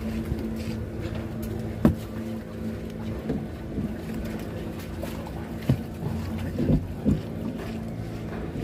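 A boat engine running steadily at idle, with several sharp knocks from tuna being lifted and handled in a wooden boat, the loudest about two seconds in.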